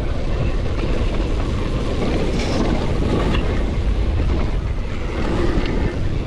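Wind rushing over the action camera's microphone as a downhill mountain bike descends a dirt trail, with the rumble of knobby tyres on loose dirt. A few short rattles from the bike come about two and a half and three and a half seconds in.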